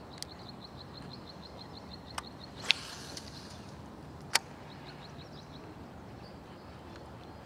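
Quiet outdoor ambience with a rapid series of short, high chirps, about seven a second, heard twice. A few sharp clicks cut in, the loudest followed by a brief hiss.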